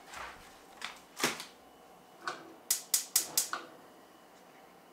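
A few knocks of things being set down on the counter and stovetop, then a gas range burner's spark igniter clicking about five times in a second as the burner under the skillet is lit.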